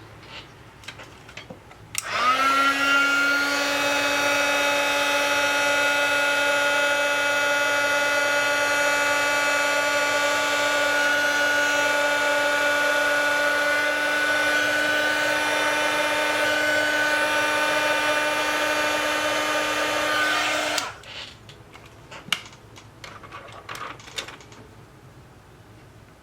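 A small electric motor spins up, its pitch rising briefly, then runs steadily and loudly for about nineteen seconds with a whir and a hiss before switching off.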